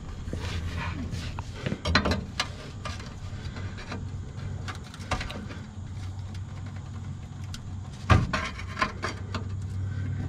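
Sharp metallic clicks and knocks from a long breaker bar and socket working the lower shock-mount nut off a Ford F-250's front shock absorber, the loudest knocks about two seconds in and about eight seconds in. A steady low hum runs underneath.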